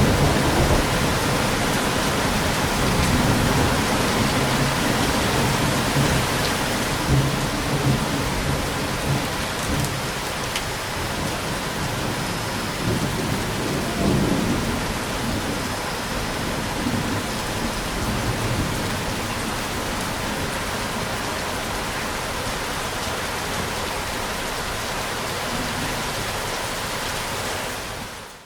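Steady heavy rain with low thunder rumbling, strongest in the first few seconds and again about halfway through, the rumble easing off toward the end before the sound cuts off abruptly.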